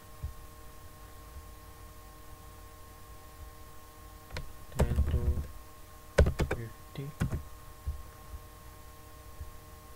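Computer keyboard and mouse clicks: a short burst of key presses about five seconds in, then a few separate clicks, over a steady background hum.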